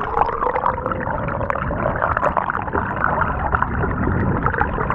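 Sea water heard through an action camera held underwater: a dense, muffled rushing with constant fine crackling clicks.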